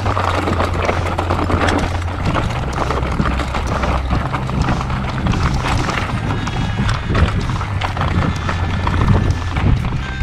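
Background music with a steady bass line that moves in steps under a busy, clicking rhythm, joined by thin high held notes about six seconds in.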